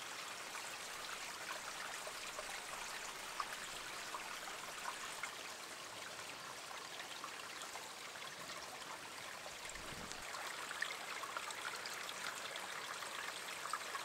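Small stream running steadily, a continuous rushing trickle.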